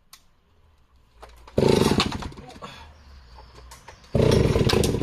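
Stihl 041AV 61cc two-stroke chainsaw revved hard twice, about one and a half and four seconds in. Between the revs it drops back to a low, lazy idle.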